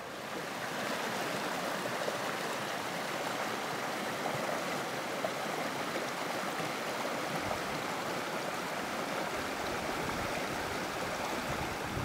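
Shallow rocky stream rushing and splashing over boulders: a steady rush of water that fades up within the first second, then holds level.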